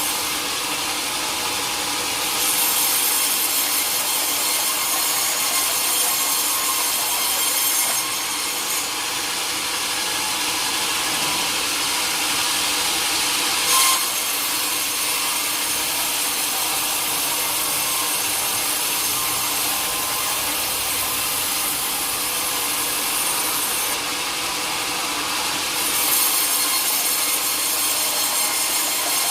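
Sawmill blade cutting through a teak log, a steady high-pitched rasp that grows louder for a few seconds at a time, with one short sharp click about fourteen seconds in.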